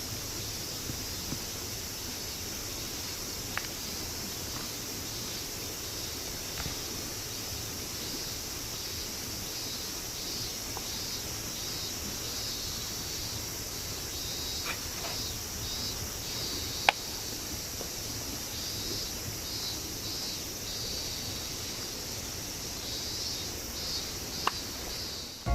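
Insects chirping steadily in a soft, pulsing high chorus over the low, even rush of a mountain stream, with a few isolated sharp clicks, the clearest about two-thirds of the way in.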